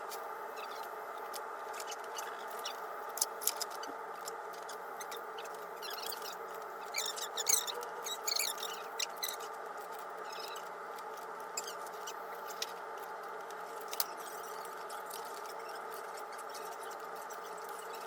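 Small plastic bags crinkling and enamel pins clicking as they are handled, in scattered clusters that are busiest about seven to nine seconds in, over a steady background hum.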